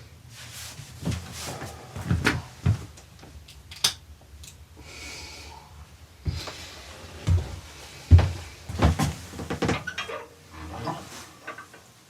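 Irregular knocks and thumps with rustling between them, as objects are handled in a small room. The loudest knock comes about eight seconds in.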